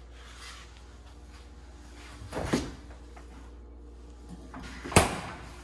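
Kitchen cabinet doors being opened and shut: a rattly knock about two and a half seconds in and a sharper, louder bang about five seconds in.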